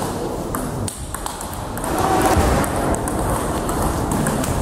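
Table tennis rally: the ball is struck back and forth, giving a run of sharp, irregularly spaced clicks as it hits the paddles and the table.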